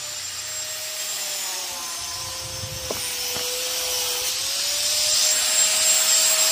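A power tool cutting steel: a steady motor whine that sags and recovers slightly in pitch over a gritty hiss, growing louder toward the end, with two light knocks about three seconds in.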